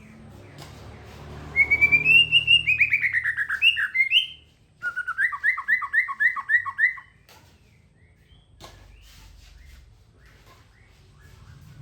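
A songbird singing two phrases. The first is a fast run of many rising and falling notes lasting about three seconds. After a brief gap comes a run of about nine repeated notes, around four a second. The second half is much quieter.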